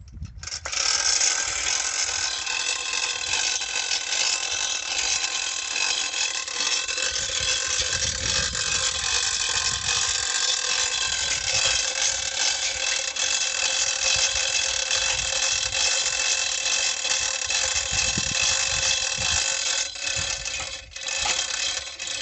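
Manual chain hoist (chain pulley block) being worked by hand, its ratchet pawl clicking rapidly and its chains rattling as it lifts the borewell pipe. The clicking runs on without a break until a short pause near the end.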